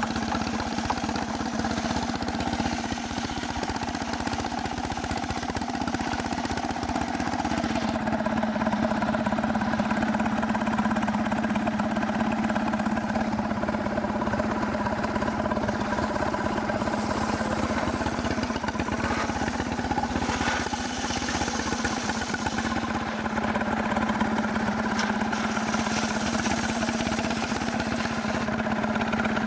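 Stihl chainsaw engine running steadily at high revs on a chainsaw mill, holding one even pitch throughout.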